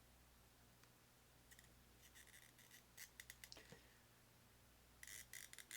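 Near silence with faint, light clicks and scratches of small hand tools working on a circuit board, in two clusters: one from about a second and a half in, another near the end.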